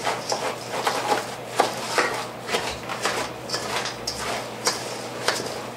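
A spoon stirring puffed rice cereal coated in a sticky peanut butter and maple syrup mix in a stainless steel mixing bowl: irregular scraping and clicking strokes against the metal.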